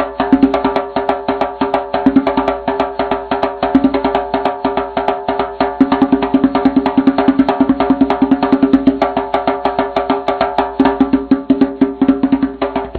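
Music with a fast, busy percussion beat of sharp clicks over held tones, ending abruptly.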